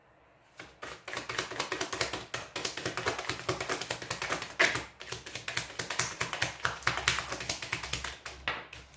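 A deck of tarot cards being shuffled by hand, the cards flicking against each other in a fast, dense run of small clicks that starts about a second in and stops just before the end.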